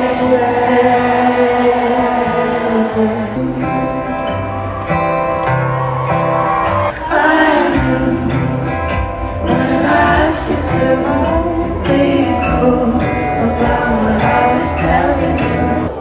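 Live pop concert: a woman singing into a handheld microphone over a band through the festival PA, with sustained chords and a steady bass line under the melody.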